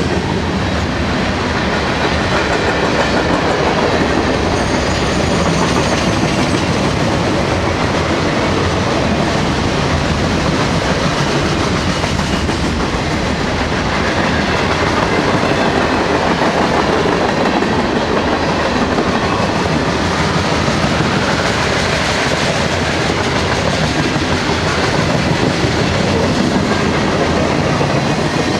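Long freight train's cars rolling past on the rails, a steady loud rumble and clatter of steel wheels on track.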